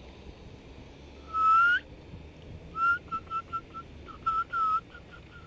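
A person whistling: one held note that rises at its end, then a run of short, quick notes at about the same pitch.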